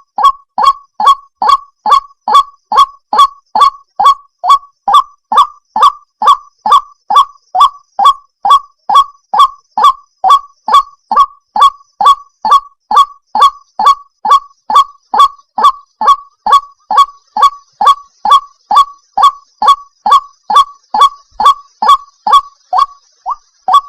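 White-breasted waterhen (ruak-ruak) calling: a loud, monotonous 'kwak' note repeated evenly a little over twice a second, each note dipping slightly in pitch.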